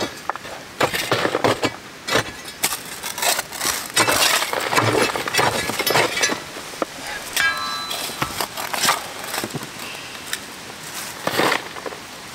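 A shovel scraping and scooping rocky dirt, and a steel digging bar knocking into the soil as the backfill is tamped around a cardboard concrete form tube. Irregular scrapes, clinks of stones and dull knocks.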